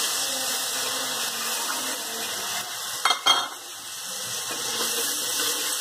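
Hot tempering oil with garlic, chilli and spices sizzling in a metal kadhai as yogurt is poured in and stirred with a flat steel spatula. A short clatter of the spatula against the pan comes about three seconds in.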